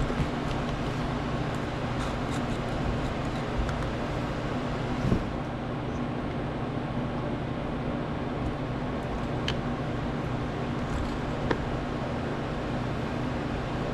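A steady low mechanical hum, with a few faint clicks and a short knock about five seconds in.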